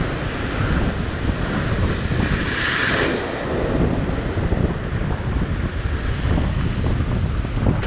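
Surf breaking and washing over sea rocks, with strong wind buffeting the microphone in a low rumble. A louder rush of surf comes about three seconds in.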